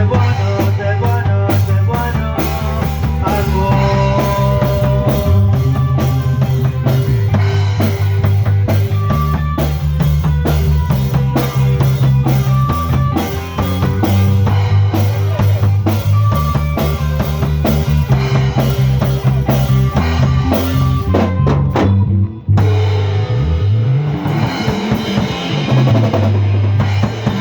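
Live rock band playing an instrumental passage without vocals: a drum kit beats steadily under a changing bass line, with some higher melodic notes. About 22 seconds in the band breaks off for a moment, then comes back in with a sliding bass and a washier, cymbal-heavy sound.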